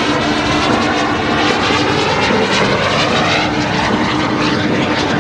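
Super Salto jet sailplane flying by, its small jet engine giving a steady rushing noise.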